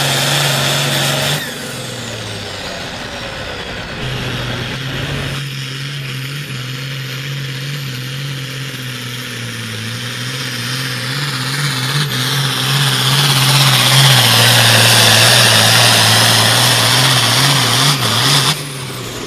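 Diesel engines of hot farm class pulling tractors running at full power while hauling a weight-transfer sled, heard as several short clips cut together. The engine sound rises and gets louder about two-thirds of the way through, then drops off abruptly near the end.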